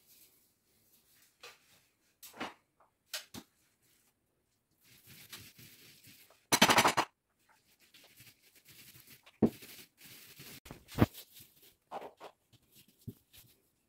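A small paint roller spreading wallpaper paste on a wall makes a soft, wet rolling noise, with one louder brief rush about halfway through. Scattered knocks and clicks of tools being handled come in between.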